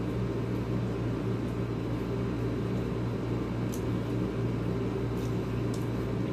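Steady mechanical hum of an electric appliance motor running in the room, with a few faint clicks from hand-eating at the table.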